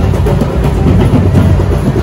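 Loud music with drums and percussion, heaviest in the bass.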